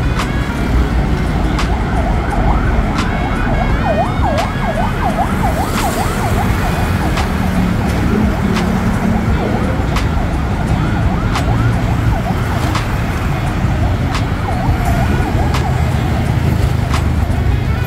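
Dense road traffic rumbling past, with a siren yelping in quick, repeated rising-and-falling sweeps for a few seconds around the middle, and fainter again later on.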